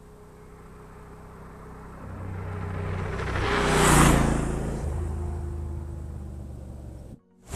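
Yamaha Super Ténéré XT1200Z adventure motorcycle with a parallel-twin engine riding past on a gravel road. The engine and tyre noise build up, are loudest about four seconds in, then ease off as it moves away.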